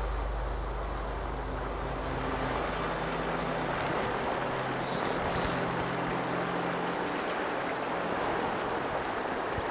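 Steady rush of river current, with faint low held tones underneath that thin out before the end.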